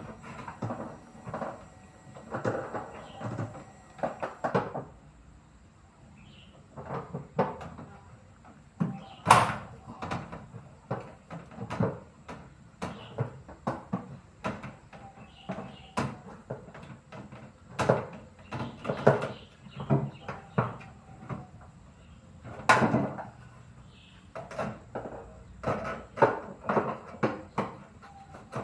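Irregular knocks and clatter of metal and plastic parts being handled and set down while a front-loading washing machine is taken apart.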